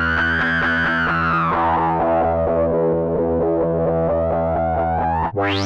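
Electric guitar played through the Sunwave analog optical low-pass filter pedal: a rapidly repeated picked note with high resonance, the filter cutoff sweeping up and then back down. Near the end the resonance jumps into a sharp rising squeal as the filter, on its Full Res setting, is pushed into self-oscillation.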